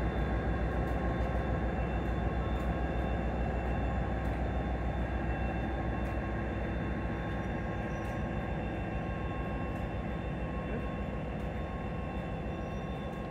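Diesel locomotive's engine running steadily as the train pulls away, the deep hum and engine whine fading slowly as it recedes.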